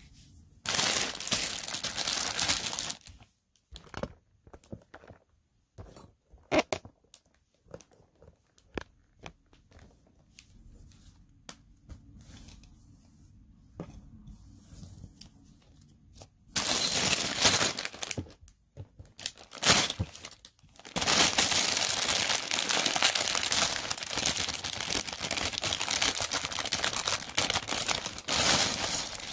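Lego set packaging being torn open and crinkled. A short noisy stretch comes near the start, then a spell of scattered light clicks and taps, then longer stretches of tearing and crinkling through the second half.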